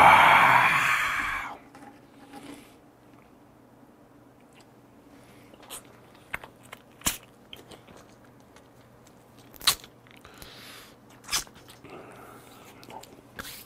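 A man lets out a loud, drawn-out "ahh" after a shot of strong liquor, fading away over about a second and a half. Then come quiet eating sounds as he handles and chews raw shrimp, with scattered faint clicks.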